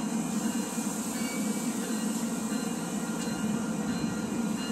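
AMT commuter train with bilevel coaches at the station platform, giving a steady rumble and hum.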